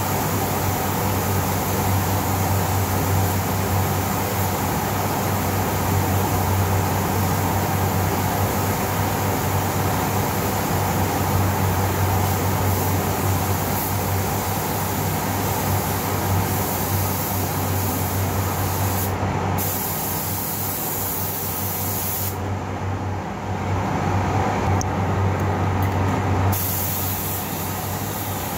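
Gravity-feed paint spray gun hissing as compressed air sprays the paint, over the steady hum of the spray booth's fans. The hiss stops briefly about two-thirds of the way in, then again for about four seconds near the end.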